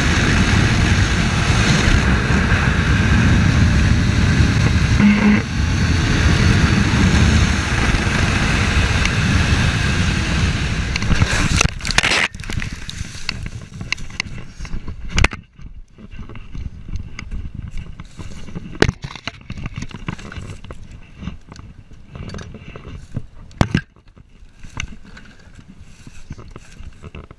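Suzuki sport bike at speed, heavy wind rush over its engine. About twelve seconds in, a quick run of hard impacts as it crashes off the road, with another knock a few seconds later. Then scattered crackling and scraping of dry brush and dirt.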